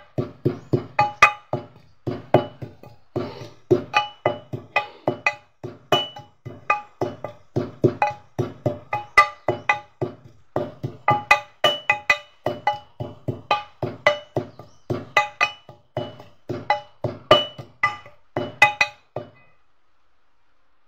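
Pestle pounding in a metal mortar, about two to three strikes a second in runs with brief pauses, each strike giving a dull knock with a short metallic ring; the pounding stops about a second before the end.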